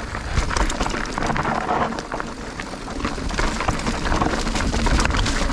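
Mountain bike riding down a rough, rocky trail: steady tyre noise on rock and dirt, packed with rapid clicks, knocks and rattles from the bike, over a strong low rumble.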